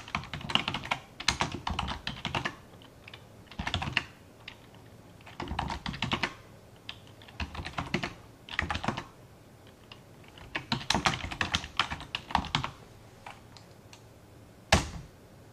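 Typing on a computer keyboard: bursts of rapid key clicks separated by short pauses, with one louder single keystroke near the end.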